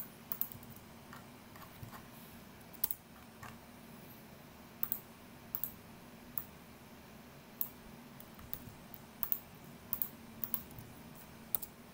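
Irregular clicks from a computer keyboard and mouse, about twenty scattered short clicks, some in quick pairs, over a faint steady low hum.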